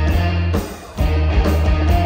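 Live rock band playing loud, with electric guitars, bass and drums. The band drops out briefly about half a second in and comes back in full about a second in.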